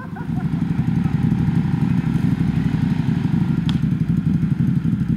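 An ATV engine running hard, growing louder over the first second or so and then holding steady. A single sharp click sounds about two-thirds of the way through.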